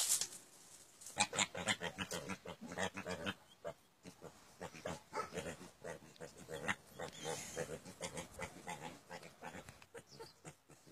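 Vietnamese pot-bellied pigs grunting in long runs of short, quick grunts, after a brief sharp noise right at the start.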